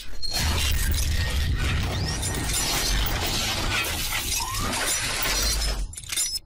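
Logo-intro sound effects: shattering glass and a metallic mechanical clatter over a low rumble, starting abruptly and dropping away about six seconds in.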